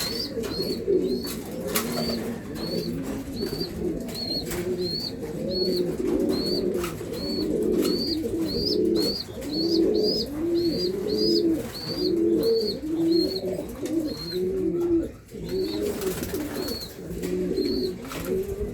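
German beauty homer pigeons cooing continuously in overlapping calls, with a short high peep repeated about twice a second above the cooing.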